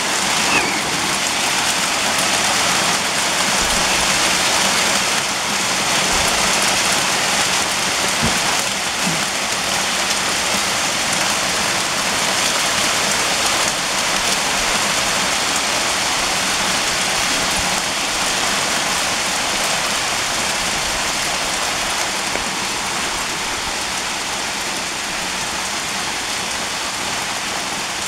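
Hail pounding a back patio: a dense, steady hiss of small pellets striking a patio table, gravel and lawn, easing slightly over the last several seconds.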